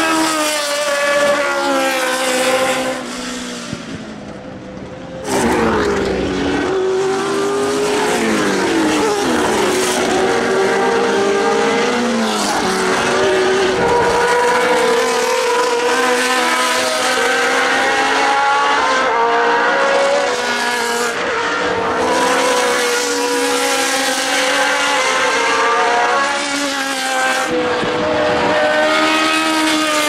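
Historic Formula One cars with 3.0-litre Ford Cosworth DFV V8 engines, the 1979 Ligier JS11 among them, revving high and shifting gear as they race past, often several engines sounding at once. The sound drops away about three seconds in and comes back abruptly about five seconds in.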